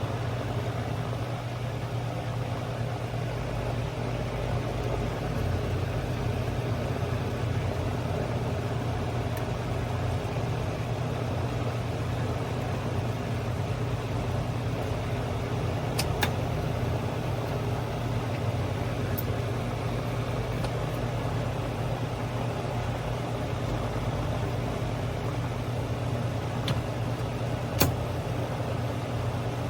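A steady low mechanical hum with no change in pitch, broken by a few brief sharp clicks.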